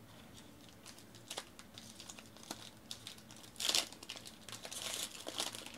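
Foil trading-card pack wrapper being torn open and crinkled by hand: scattered crackles, a loud rip a little past halfway, then a run of dense crinkling near the end.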